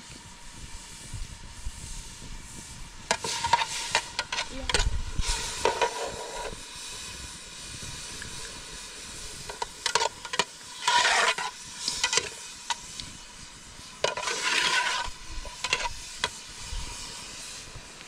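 Three bursts of scraping noise, each a few seconds long, with sharp clicks, over a steady low hiss.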